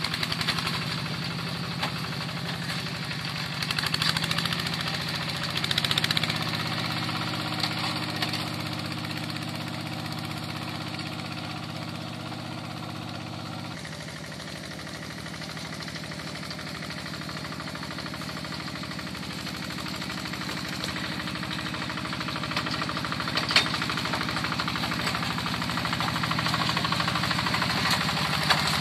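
Yanmar Bromo Pro hand tractor's diesel engine running steadily. About halfway through its note shifts and it gets a little quieter, then it grows louder again toward the end.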